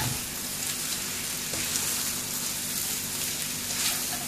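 Noodles and egg sizzling in a hot wok as a spatula turns and stirs them, a steady hiss with a few light scrapes and clicks. A sharp knock of the spatula on the wok comes right at the start.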